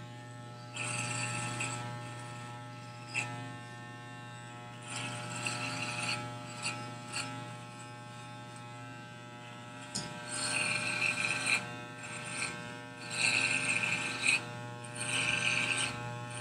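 Corded electric hair clippers running with a steady hum. Several times the clippers give louder rasping bursts of a second or two as they are run up the side of the head, cutting hair.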